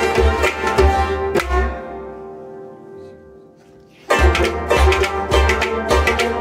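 Kashmiri Sufi folk music: hand strokes on a clay pot drum (noot) in a fast, steady rhythm, with a bowed sarangi and a harmonium. About a second and a half in, the drumming stops and a held tone fades away. The full ensemble cuts back in abruptly about four seconds in.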